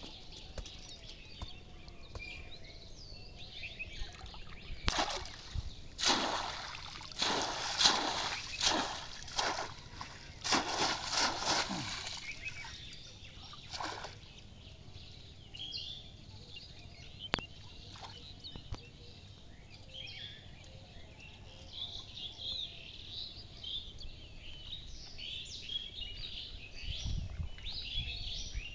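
Shallow pond water splashing and sloshing as a bamboo fish trap is worked through it, in a run of splashes lasting about ten seconds in the first half. Small birds chirp throughout.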